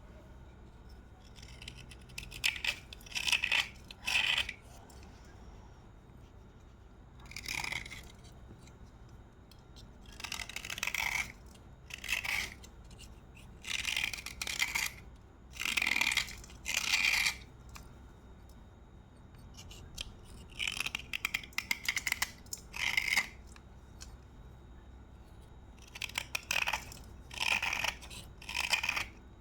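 Slate pencil being bitten and chewed: crisp crunching in short bursts every second or two, with brief pauses between, some bursts coming in quick pairs or triplets.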